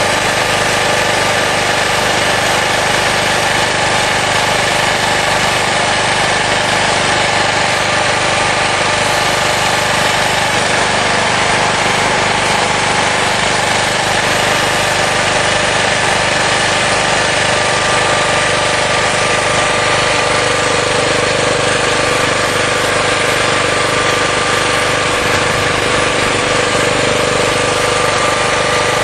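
12 hp gasoline generator engine running steadily on a Pantone-style GEET vapor carburetor, a constant loud drone with a steady hum that does not change in speed.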